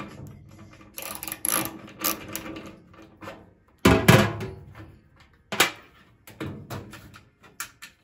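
Screwdriver with a security Torx bit clicking and scraping against a microwave's sheet-metal casing as a small screw is backed out, in irregular clicks, with a louder knock about four seconds in.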